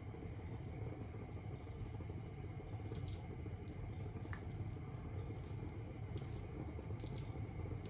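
Faint rustling and squishing as fingers press a batter-coated potato ball into a plate of sliced raw onions, with scattered small ticks over a steady low hum.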